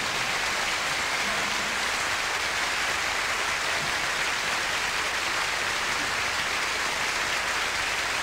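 Concert audience applauding steadily, a dense even clatter of many hands, with no music under it.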